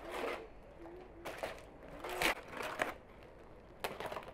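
Stacked sheets of dry lavash flatbread crackling and crinkling in several short bursts as they are handled and sprinkled with water to soften them.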